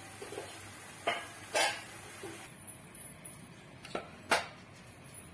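Metal utensils knocking and clinking against cooking pots, about five separate knocks, over a faint hiss that drops away about halfway through.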